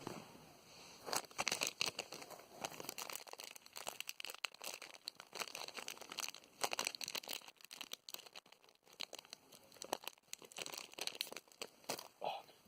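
Foil wrapper of a trading-card pack crinkling and tearing as it is opened by hand, in a run of uneven crackles.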